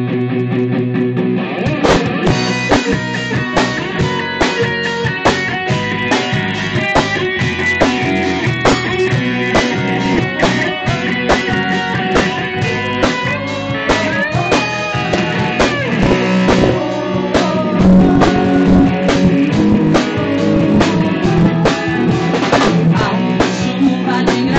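A small band playing an instrumental passage on electric guitar, keyboard and drum kit, with no singing. The drums come in about two seconds in and keep a steady beat under the guitar.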